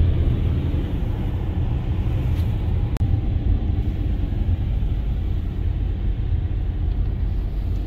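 Steady low rumble with a faint hiss above it, and a single sharp click about three seconds in.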